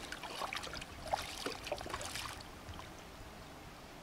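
Shallow river water splashing and trickling around a large redtail catfish held in the shallows: small irregular splashes for the first couple of seconds, then fading to a faint steady hiss.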